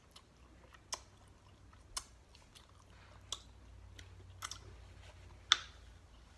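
Close-up chewing: wet mouth clicks and smacks, about one a second, from eating pigtail and neck bone.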